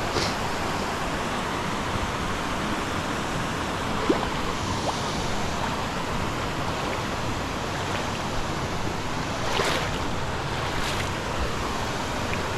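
Steady rush of river water running over rocks, with a few faint short knocks.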